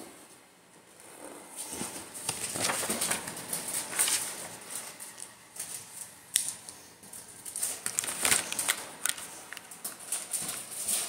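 Felt-tip marker scratching across paper in irregular strokes, with a few sharp taps.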